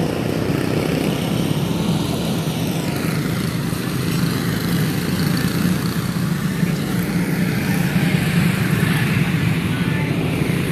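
A field of quarter midget race cars' small single-cylinder engines running together at caution pace, with several engine notes rising and falling in pitch.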